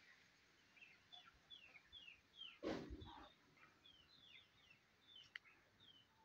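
Aseel chicks peeping: a steady run of short, high chirps, each sliding downward in pitch, several a second. A brief louder, lower sound comes about three seconds in, and a sharp click near the end.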